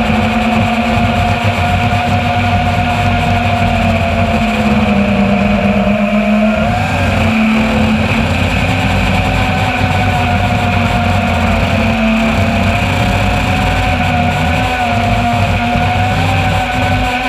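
Brushless motors and propellers of a Martian 210 FPV racing quadcopter, heard through its onboard camera: a loud, steady buzzing hum over a rush of air. The pitch drifts slightly and shifts briefly about seven seconds in.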